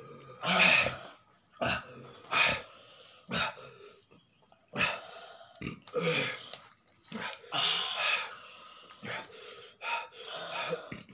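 Heavy, hissing breaths blown out through open mouths, over and over at an uneven pace about once a second: people gasping against the burn of raw green chilies.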